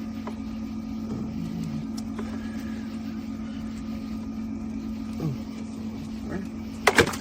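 Steady electric motor hum, with a quick cluster of sharp clicks and knocks near the end.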